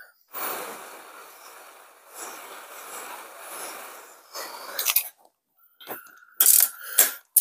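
Aerosol can of penetrating spray hissing in two long bursts onto rusted exhaust manifold studs, then a shorter burst. A few short, sharp metallic sounds follow near the end as a wrench goes back onto the studs.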